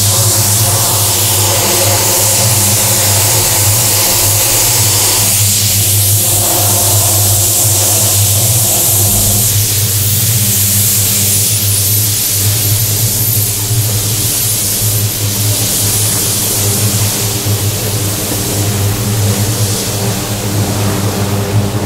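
Loud, steady machine-like drone: a deep constant hum with several held tones above it and a strong high hiss.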